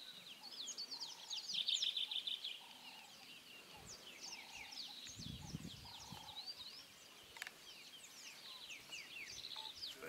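A chorus of wild birds chirping in quick, short falling notes, with a buzzy trill about two seconds in. A lower short note repeats every second or so, and there is a brief low rumble about five seconds in.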